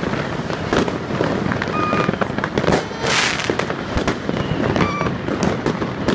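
Fireworks going off: many sharp bangs and crackles from rockets and firecrackers, with a dense hissing burst about three seconds in.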